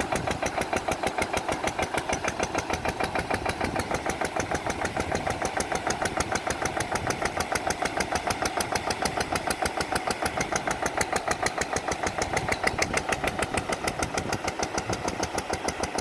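Small engine of a long-arm pond aerator running steadily, with a fast, even train of firing pulses.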